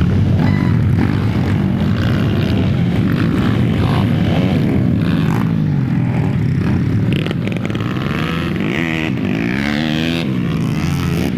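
A pack of motocross dirt bikes racing past on a dirt track, several engines running hard at high revs together. The sound eases a little as they pull away, and near the end one engine's pitch swings up and down as it revs through the gears.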